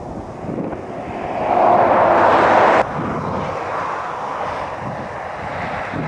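Wind buffeting the microphone, with a louder rushing noise that builds from about a second in and cuts off abruptly near three seconds.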